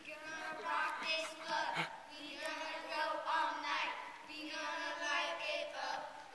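Children singing a song together, with held, sung notes.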